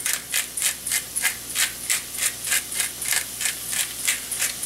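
Pepper mill grinding black pepper over the pasta: even grinding strokes at about five a second.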